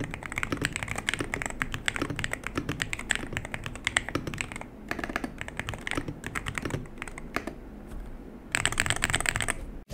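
Typing on an Aula HERO84 HE keyboard with Black Emperor magnetic switches on an FR4 plate: a steady stream of keystrokes with short pauses, turning into a faster, louder run of keystrokes near the end.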